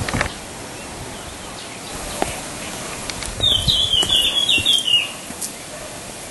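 A songbird sings one short phrase of about five quick, falling notes, about halfway through, over a steady outdoor hiss.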